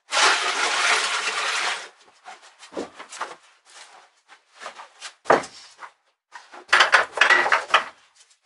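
Livestock feed being tipped into a trough: a rush of pouring for about two seconds, then scattered knocks and clatter of a scoop or bucket against wooden pen boards, a sharp knock about five seconds in, and another rustling pour near the end.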